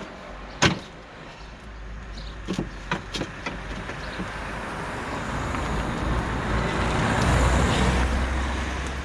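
A few sharp clicks and knocks as the E36's plastic front bumper is worked loose, then a passing vehicle's rushing road noise with a low rumble swells over several seconds, loudest near the end, and begins to fade.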